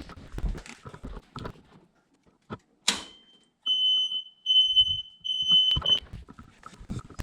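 A sharp click, then three high, steady electronic alarm beeps, each about half a second long, as the house power is switched back on.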